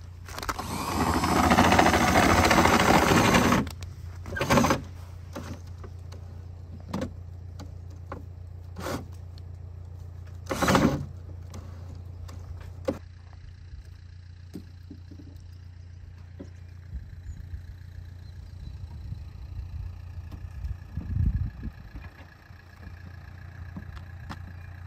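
Cordless drill winding a caravan's corner steady, running in short bursts. The longest burst lasts about three seconds near the start, and all of it sits over a steady low hum.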